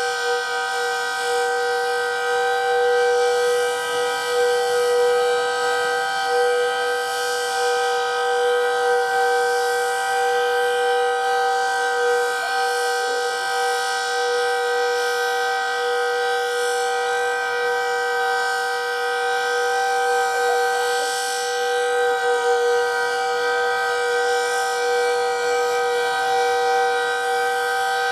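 Decot Red Arrow Model 12 outdoor warning siren sounding its full-alert signal, a loud steady tone held at full speed without rising or falling.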